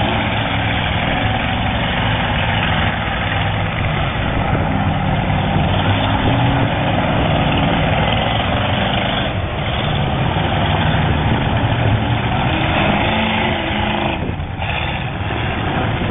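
Engines of demolition derby cars running together in a steady, loud din.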